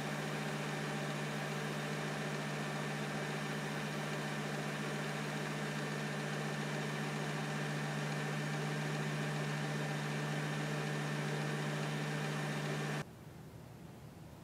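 Microwave oven running at 500 W with a steady low hum over fan and turntable noise as it heats a DIY candy kit's cake mix; it stops abruptly near the end.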